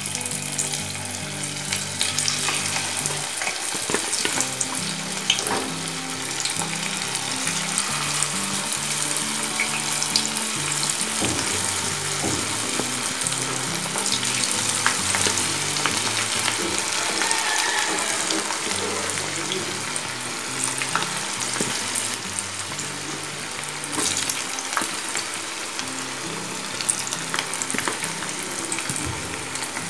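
Batter-coated cauliflower pieces deep-frying in hot oil, a steady sizzle full of fine crackles as more pieces are added to the oil.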